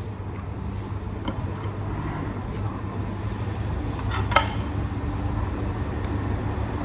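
A ceramic pizza plate and a metal fork clicking on a stone tabletop, the sharpest clink about four seconds in, over a steady low hum.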